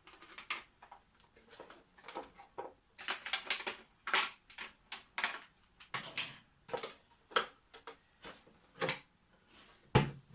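Hard plastic parts of a cereal dispenser clicking and knocking together as they are handled and fitted onto its stand, in irregular taps, with the loudest knock near the end.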